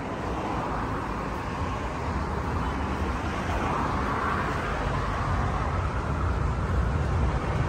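Steady rumble of vehicle engines and road traffic, growing slightly louder toward the end.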